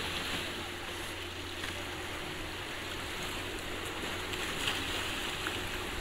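Waves and water washing, with the faint steady drone of a distant Mercury F20 four-stroke outboard pushing a small boat at speed.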